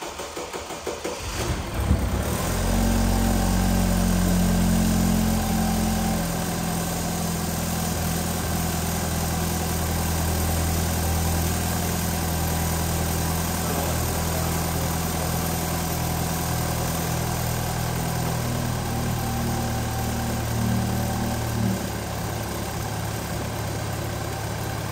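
BMW N20 2.0-litre turbocharged four-cylinder cranking on the starter and catching about two seconds in on its first start after a rebuild. It then runs steadily at idle, a little quieter from about six seconds in.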